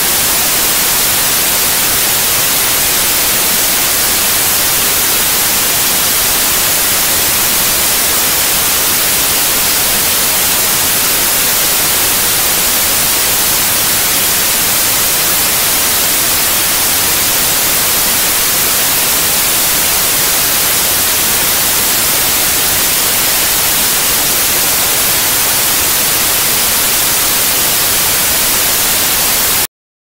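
White noise test signal: a steady, loud hiss containing all frequencies at the same level. It cuts off suddenly near the end.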